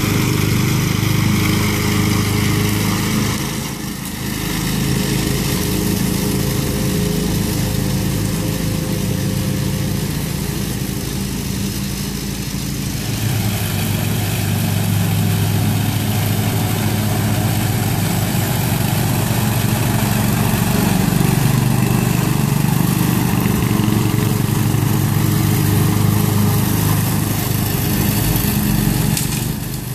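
Engines of a Cub Cadet riding lawn mower and a towed walk-behind push mower running steadily together. The riding mower's belt is broken, so the push mower does the cutting. The engine note shifts about a third of the way through and wavers in pitch later on.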